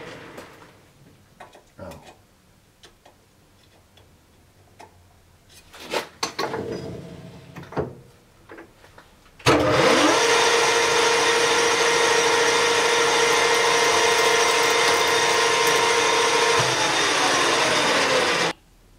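Metal lathe drilling: a few light knocks and clinks at first, then about halfway through a loud, steady machining noise with several steady tones starts suddenly as the twist drill in the tailstock chuck bores into the spinning workpiece, running for about nine seconds and stopping abruptly.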